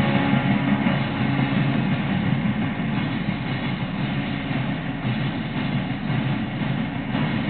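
Steady crowd noise from a football stadium, a dense even din without music.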